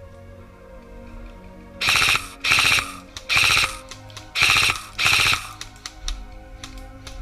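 Airsoft electric rifle (AEG) firing five short full-auto bursts in quick succession, each about half a second of rapid clicking, starting about two seconds in, over steady background music.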